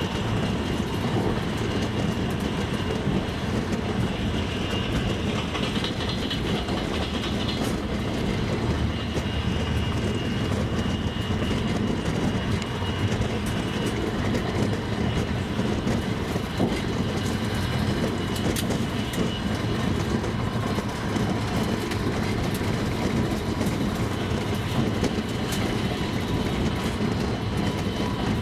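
Double-decker passenger train running steadily on the rails, its wheels clattering over the rail joints with a continuous rumble and scattered short clicks.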